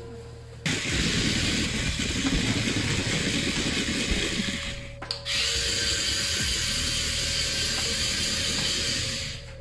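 Remote-control toy tarantula's small motor and gears whirring steadily as it walks, in two long runs with a brief break about five seconds in.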